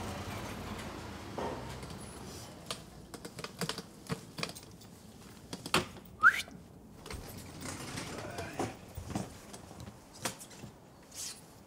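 Manual wheelchair being moved over paving and up a wooden ramp: scattered clicks and knocks, with one short rising squeak about six seconds in.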